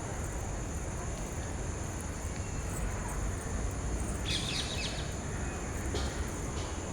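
Park ambience at dusk after rain: a steady high insect drone, with a short burst of bird chirps a little past the middle. A low rumble of wind on the microphone runs underneath.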